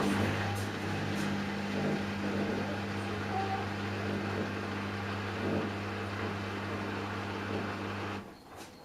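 Hoover H-Wash 500 washing machine humming steadily with a hiss over it, cutting off about eight seconds in.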